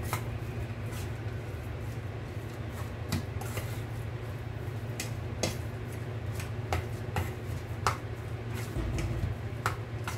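Metal fork clinking and scraping against a stainless steel mixing bowl as moist stuffing mix is stirred, in irregular clicks about once a second over a steady low hum.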